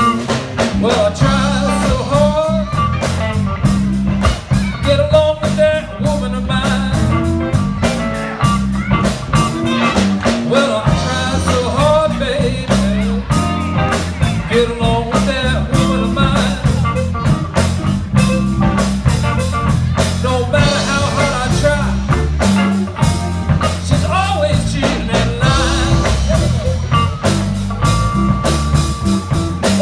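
Live electric blues band playing: harmonica wailing in bending, sliding notes over electric guitars, a walking electric bass and drums.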